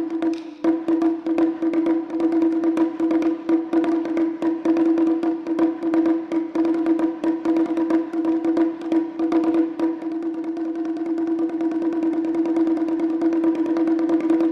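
Japanese taiko ensemble playing: fast, dense strikes with a sharp, woody click, over a single pitched tone held throughout. From about ten seconds in, the strikes run together into a steadier roll.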